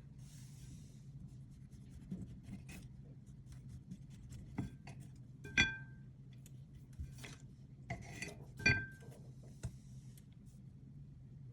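Utensils clinking and scraping against dishware in a kitchen, with two louder ringing clinks about five and a half and nine seconds in, over a low steady hum.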